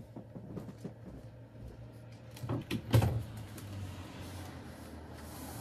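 Knocks and bumps from someone moving about off camera, the loudest a little after halfway, over a faint steady low hum.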